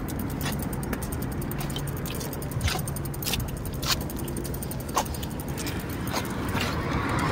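Bicycle rolling slowly over pavement: a fast even ticking, a steady low hum and a few sharp rattles.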